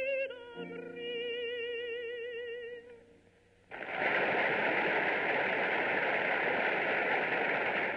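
A contralto voice with a wide vibrato holds the final notes of a song over piano accompaniment on an old archival recording. It ends about three and a half seconds in, and then a large outdoor crowd applauds steadily.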